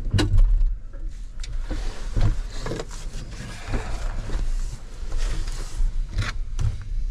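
Loose electrical wires being pulled up and handled, with scattered short clicks and knocks over a steady low rumble.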